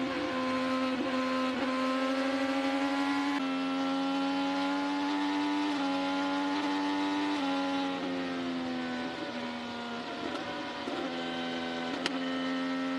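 An IndyCar's Chevrolet 2.2-litre twin-turbo V6, heard from onboard, running flat out at near-constant high revs on an oval. The pitch shifts slightly a few times, and it sags a little for a couple of seconds in the second half before settling again.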